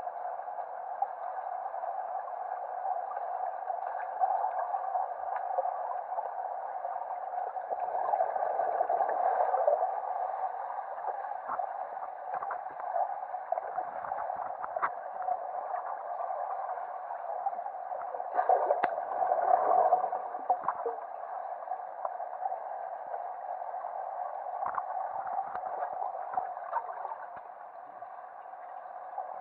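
Underwater sound picked up by a pole-mounted camera submerged in a swimming pool: a steady, muffled hum with water gurgling and bubbling, swelling louder twice, about a third and two thirds of the way through, with a few faint clicks.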